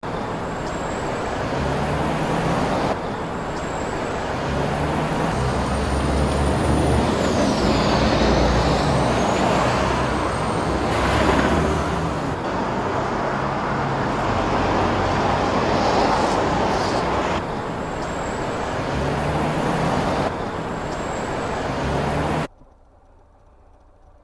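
Loud road traffic at a roadside, with heavy vehicles running and passing. It changes abruptly several times and cuts off sharply near the end.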